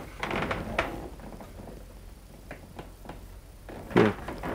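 Footsteps and light knocks on the boards of an old wooden building, with a louder thump near the end.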